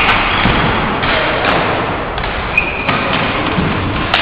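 Floor hockey play on a hard gym floor: scattered thuds and clacks of sticks and ball, echoing in the hall.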